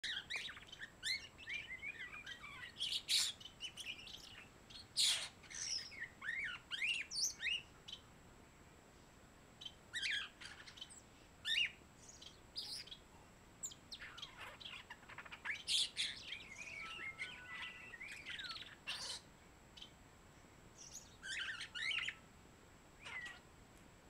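Young European starling singing: a rambling run of whistles, chirps and clicks in bursts, with short pauses between them.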